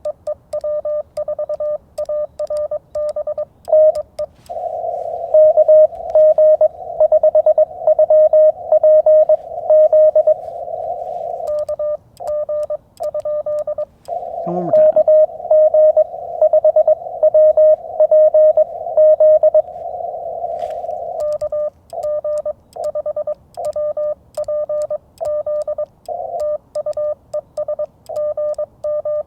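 Morse code (CW) tones from a Yaesu FT-891 HF transceiver, keyed on and off at one steady pitch in rapid dots and dashes. Some stretches are clean, with faint clicks alongside the keying. For two long stretches in the middle the code sits on a band of hiss, typical of a signal heard through the receiver's narrow CW filter.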